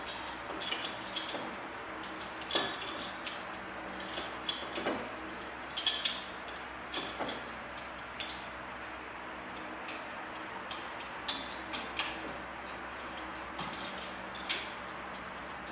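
Scattered light metallic clicks and taps at irregular intervals, from a small steel bolt and hand tools knocking against metal in a car's engine bay as a 10 mm bolt is fiddled at by hand and won't thread in, over a faint steady hum.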